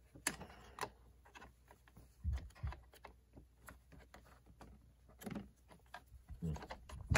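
Scattered light clicks and knocks of hands fitting the batteries and wiring into the plastic battery compartment of a Traxxas Unlimited Desert Racer RC truck, with a couple of duller thumps a little over two seconds in.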